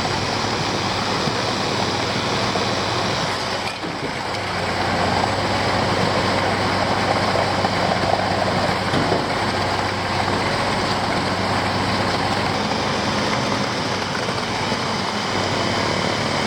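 A heavy concrete truck's diesel engine running at a steady speed: a constant low hum under a dense mechanical rush, easing briefly about four seconds in.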